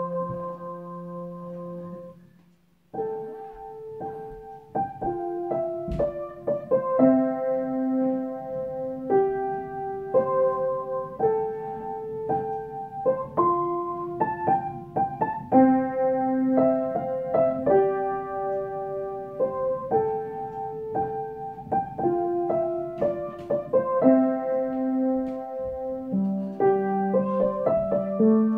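Background piano music, a slow melody of held notes. It fades almost to silence about two seconds in and starts again about a second later.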